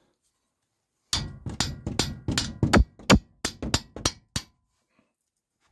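About a dozen sharp metallic knocks, irregular and a few per second, from tools working the seized upper nut of a Renault Duster's stabilizer link.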